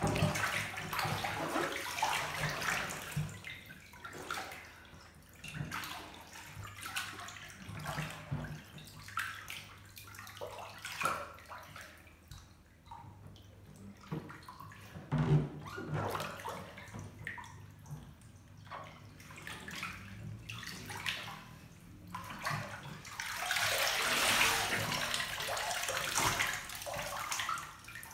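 Bathwater splashing and sloshing in a full bathtub as a clothed person moves around in it, in irregular bursts, with a longer, louder stretch of splashing near the end.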